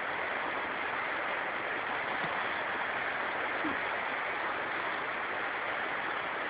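Steady rushing wash of small waves breaking along a sandy lake shore, even in level throughout.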